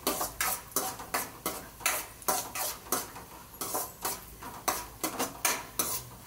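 A metal spatula scraping and knocking against a stainless steel kadai, about two or three strokes a second, stirring cashews and raisins roasting in ghee.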